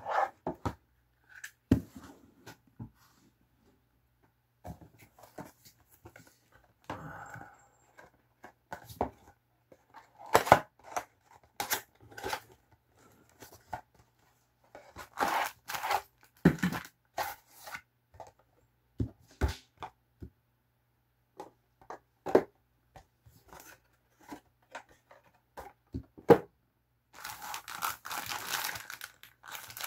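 Cardboard model-kit box being handled and opened: scattered taps, scrapes and tearing of card with short pauses between them, then a dense crinkling of a clear plastic parts bag near the end.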